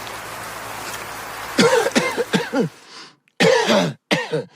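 A person coughing, several short voiced coughs in about three bouts starting about a second and a half in, after a steady hiss.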